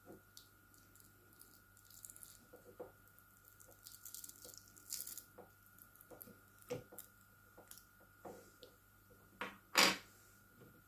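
Scattered small clicks, taps and rustles of hair-clipper parts being handled and taken apart by hand, with a louder sharp knock near the end. The clipper's motor is not running.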